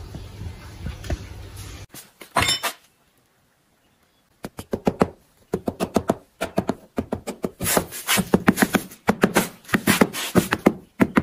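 A hammer tapping a sword pattern down into moulding sand: quick runs of sharp knocks, several a second, from about four and a half seconds in. Before that, for about two seconds, a steady rushing noise from the melting furnace, then a couple of single knocks.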